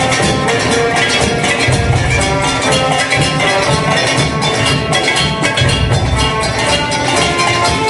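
Live percussion ensemble music played largely on kitchen utensils: steel pots, pans and containers struck in a fast, busy rhythm together with drums, over steady pitched notes from other instruments.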